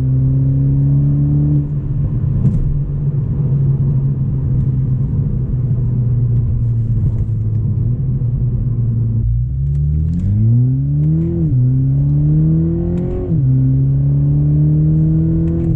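GR Supra's 2.0-litre turbocharged four-cylinder, breathing through an FI Valvetronic exhaust, running at a steady cruise. About nine seconds in the note drops, then climbs in pitch twice with a sudden drop at each upshift, and settles into a steady, slowly rising drone near the end.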